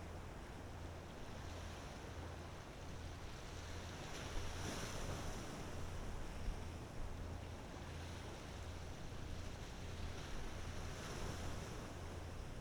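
Low throbbing hum of a passing ferry's diesel engines, carried over the water, with the wash of waves and wind swelling twice.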